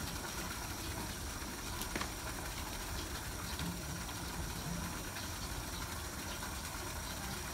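Steady hiss like running water, with a faint steady high tone and one light tap about two seconds in.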